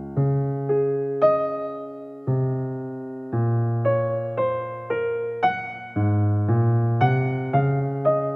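Background music: electric piano playing sustained chords that change about once a second.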